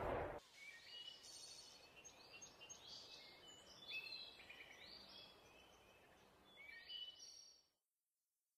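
Faint songbirds calling in woodland: short chirps and whistles scattered through, over a quiet background. The sound cuts off suddenly about a second before the end.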